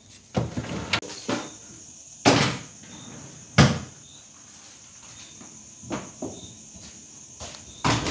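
Refrigerator drawer and plastic produce containers being handled: a series of sharp knocks and clunks, the loudest about three and a half seconds in. Faint high insect chirps repeat in the background.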